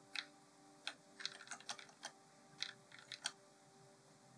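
About a dozen light, irregularly spaced clicks and taps from a computer keyboard and mouse, some in a quick run, over a faint steady hum.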